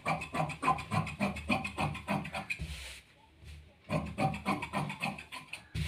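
Large tailor's shears cutting through cotton fabric, the blades rasping as they close stroke after stroke. The cutting runs for about two and a half seconds, stops for about a second, then goes on again.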